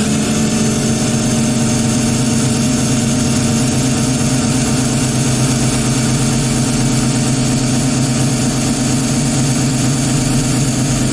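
Cordless drill running steadily at speed, its bit boring a centre hole through a resin-coated clock face: a constant motor whine with the cutting noise of the bit.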